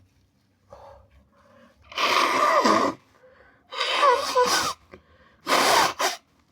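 A person blowing their nose hard, three times about a second each, with a wavering honking tone in the blows.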